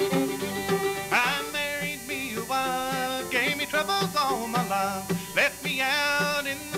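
Live bluegrass band playing: a fiddle leads with sliding, bending notes over strummed acoustic guitar, mandolin chop and upright bass.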